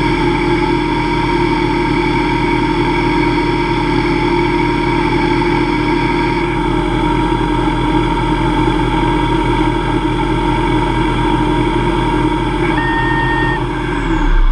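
Hobby CNC lathe running with its spindle at 2500 RPM while a diamond insert takes a light finishing pass on aluminium bar: a steady machine whine of several tones. Near the end the tones begin to fall in pitch as the spindle slows.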